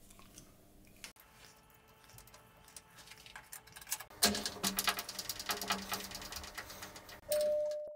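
A few light metal clicks from a hex key and a boring bar being clamped in a lathe toolpost. About four seconds in, a Colchester metalworking lathe starts and runs, a dense rattling crackle over a steady hum. Near the end a short steady tone stops suddenly.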